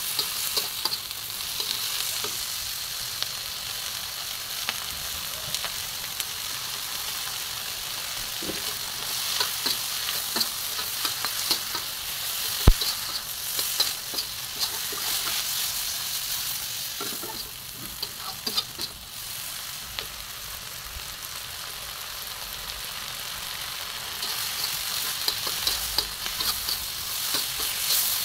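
Pork and vegetables sizzling in a hot wok as a metal spatula stirs and tosses them, scraping and clicking against the pan, with one sharp clack about halfway through.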